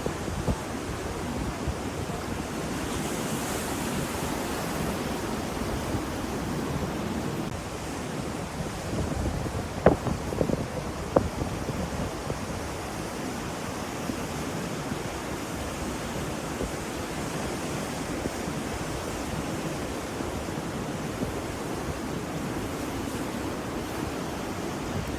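Ocean waves washing in with a steady rush, with some wind on the microphone. A few sharp knocks stand out about ten and eleven seconds in.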